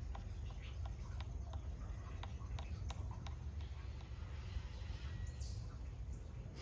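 Outdoor background: a steady low rumble with scattered light clicks and ticks, and a short falling high chirp about five seconds in.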